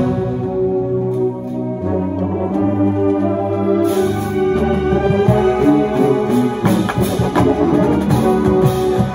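Background music with long held chords; it grows fuller and brighter about four seconds in.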